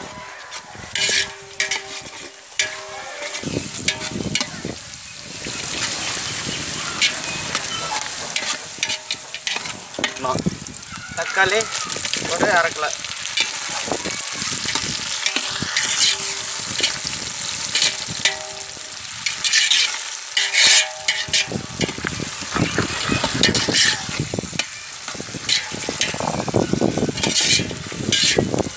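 Onions and tomatoes sizzling in hot oil in a large aluminium cooking pot, with a long metal ladle scraping and knocking against the pot at irregular moments as it is stirred.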